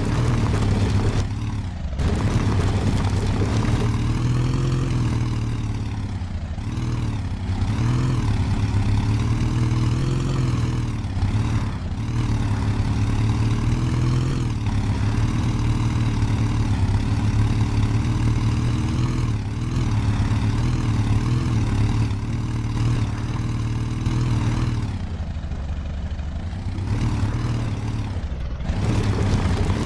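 Off-road 4×4 vehicle's engine running under load, its pitch rising and falling with the throttle as it works over rough ground. The sound breaks off abruptly about a second in and again near the end.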